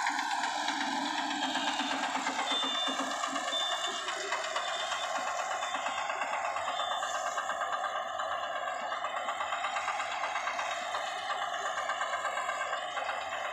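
Small engine of a walk-behind power reaper running steadily with a fast, even chatter, its pitch wavering slightly up and down.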